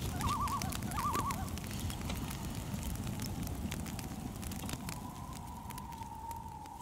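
Ambient sound bed: a steady low rumbling hiss with scattered crackles and a wavering, warbling whistle in the first second or so, slowly fading out toward the end.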